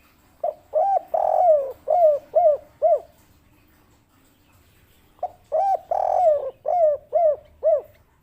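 Spotted dove (tekukur) cooing in two song phrases. Each phrase is a few short hooked coos, one longer drawn coo, then three short closing coos: the 'kuk 3' song type.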